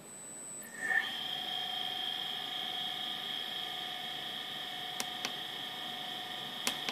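Brushless DC motor spinning up quickly about a second in, then running at a steady speed with a steady high whine. A few light clicks near the end.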